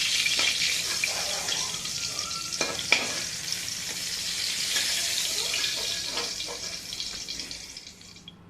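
Eggplant slices sizzling in hot oil in a kadai as they are lifted out, with a few knocks of the spatula against the pan. The sizzling fades away near the end.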